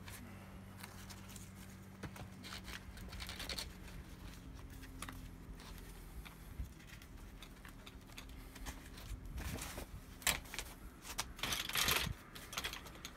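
Rustling nylon fabric and light clicks as the corner pockets of a Helinox ground sheet are pulled over the feet of a camp chair's legs, with louder rustling near the end.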